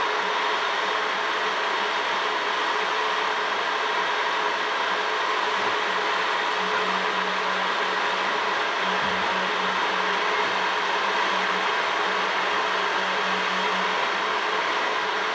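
Crystal QUAD 3D printer running a print job: a steady whirring from its fans and motors, with a low hum that comes and goes from about halfway through.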